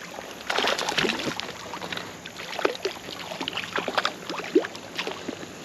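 Water splashing in irregular bursts as a hooked smallmouth bass thrashes at the surface while being netted.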